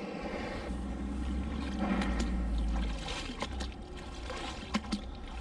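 Water trickling and sloshing as a magnet-fishing magnet is worked through canal water on its rope. A low rumble is loudest one to three seconds in, and a couple of sharp clicks come near the end.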